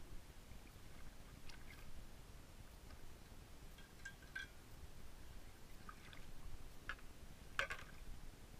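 Faint small splashes and drips of shallow seawater stirred by wading legs and a crab rake, a few scattered ones with the loudest near the end, over a low background rumble.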